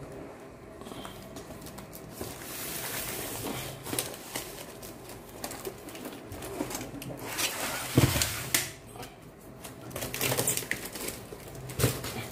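Cardboard packaging rustling and scraping as a heavy battery is pulled out of its box, with scattered knocks and clicks, the loudest about eight seconds in.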